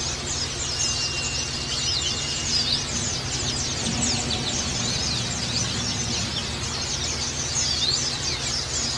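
White-eyes (pleci) twittering in rapid, continuous 'ngecal' song: a dense stream of quick high chirps and short trills, over a low steady hum.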